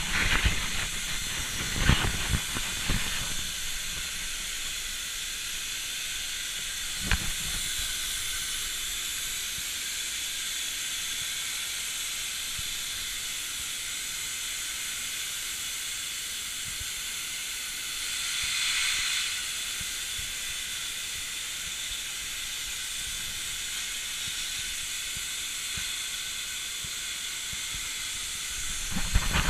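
Hypertherm Powermax 125 air plasma torch on a CNC gantry cutter cutting 5 mm steel plate: a steady, high hiss of the plasma arc. A few knocks come in the first three seconds, a single click about seven seconds in, and the hiss swells briefly about two-thirds of the way through.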